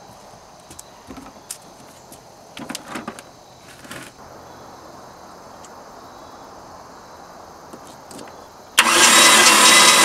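A few light clicks and taps as a compression gauge hose is screwed into a spark plug hole, then about nine seconds in a Chevy 305 V8 marine engine starts cranking over on its starter motor, loud and steady, without firing, for a compression test.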